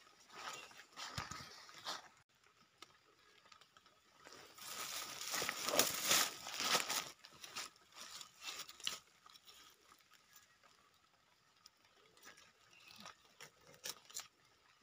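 Footsteps crunching through dry leaf litter and rustling low plants, loudest around five to seven seconds in, then lighter crackles and scrapes of dry leaves and soil as a mushroom is dug out of the ground with a knife.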